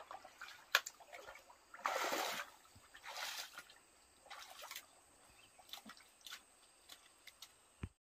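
Shallow muddy pond water splashing and trickling from a plastic bucket being scooped and lifted, in two louder spells about two and three seconds in, with small wet clicks of feet moving in mud around them.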